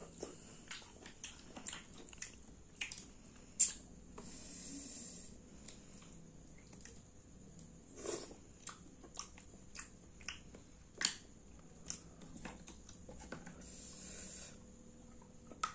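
Close-up eating sounds of green mussels: wet sucking as the meat is drawn from the shells, chewing, and small scattered clicks of the shells being handled, the loudest a sharp click about three and a half seconds in.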